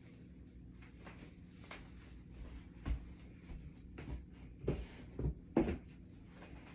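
Five soft thumps and knocks over about three seconds, the sound of shoes being handled and put on.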